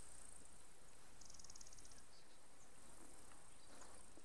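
Faint insects trilling: a steady high buzz that swells and fades. About a second in comes a short, rapid run of chirps.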